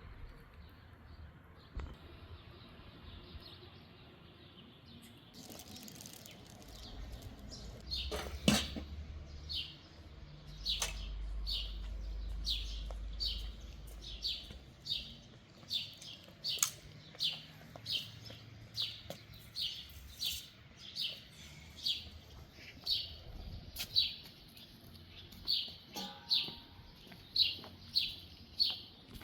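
A small bird chirping over and over, short high chirps about twice a second, starting about a quarter of the way in. A low rumble runs under it for a few seconds.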